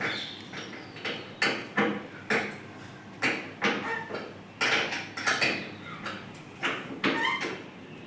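Hand tools and the metal parts of an air conditioner clinking and knocking in an irregular run of sharp clanks, about two a second, some briefly ringing.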